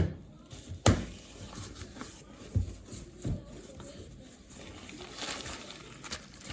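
Handling sounds in a small room: a sharp click at the start and another about a second in, a couple of softer knocks, then faint rustling.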